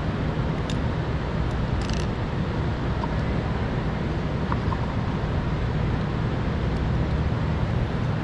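Steady background noise with a low hum, and a few faint light clicks of small plastic parts being handled.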